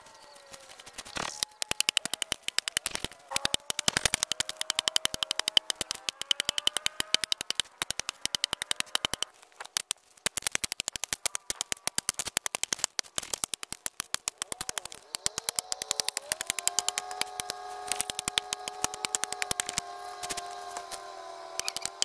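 A small hatchet chopping rapidly into a palm tree log, a dense run of sharp knocks. A steady pitched tone with several notes joins for the last several seconds.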